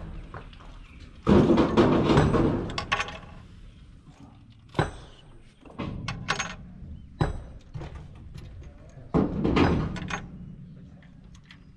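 Metal clanks and knocks of tools and engine parts being handled on the open top of a Kobelco SK200 excavator's diesel engine during an injector repair, in several separate bursts, the longest about a second in.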